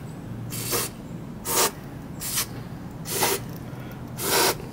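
Aerosol can of silicone lubricant sprayed in short hissing bursts, four clear ones and a fainter one between them, each under half a second.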